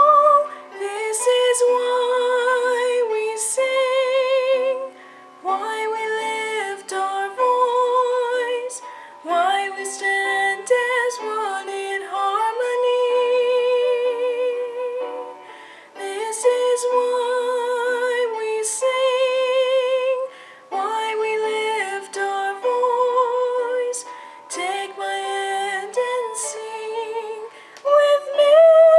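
Female voice singing a slow melodic line with vibrato, in phrases of a few seconds with short breaths between them, over light accompaniment.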